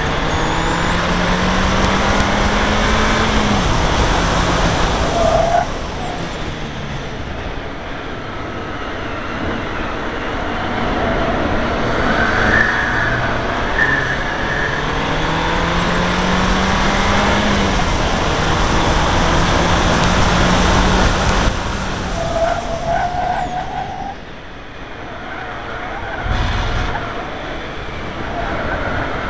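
Seat Leon Cupra R's turbocharged four-cylinder engine accelerating hard, its note rising in pitch twice and falling off suddenly as the throttle is lifted, over steady road noise. A short thump comes near the end.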